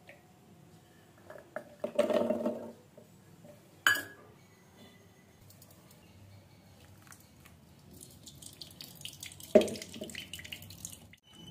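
Steel kitchen vessels and liquid: a short splash about two seconds in and a sharp metal clink a moment later, then ground shallot paste strained through a steel strainer into a steel bowl, with liquid dripping and trickling and a knock of metal near the end.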